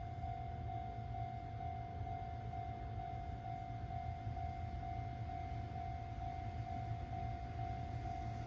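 Japanese railway level-crossing warning bell ringing steadily, a single tone repeating evenly over and over, with a low rumble underneath: the crossing is signalling that a train is approaching.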